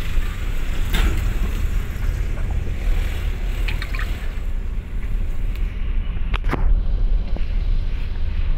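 Steady low rumble of a moving vehicle, its road and wind noise, heard from on board, with a few brief clicks about a second in and again past the middle.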